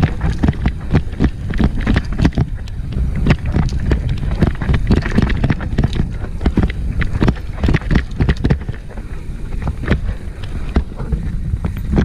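Downhill mountain bike riding over rough, rocky ground: wind buffeting the camera microphone with a steady low rumble, and rapid irregular rattles and knocks from the bike jolting over rocks.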